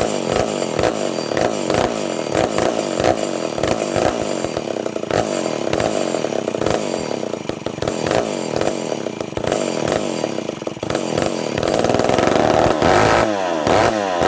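Mid-to-late-1960s Lancaster 40-IL direct-drive two-stroke chainsaw running with uneven, irregular firing, which the owner puts down to running rich from a tiny leak past the inlet needle seat. Near the end it is revved up, getting louder, and the engine speed swings up and down.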